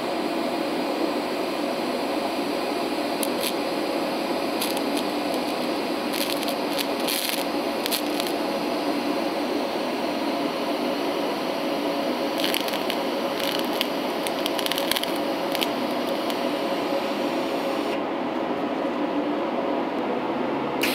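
TIG welding arc from an Eastwood TIG 200 DC welder, brazing silicon bronze filler wire onto a brass radiator tank: a steady hiss, with short spells of crackling a few seconds in and again past the middle.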